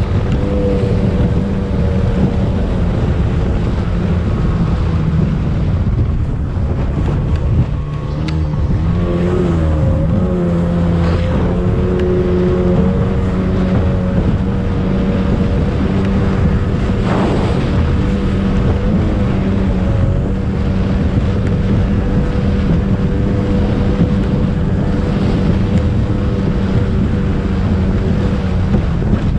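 Racing speedboat's engine running steadily at speed, recorded on board, its pitch sagging and recovering a few times about a third of the way through. Now and then the hull thumps on the waves, with wind buffeting the microphone.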